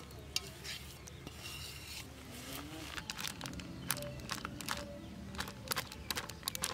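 Light clicks and scrapes on a stainless steel plate as raw meat and spices are handled, with a plastic flour packet rustling near the end.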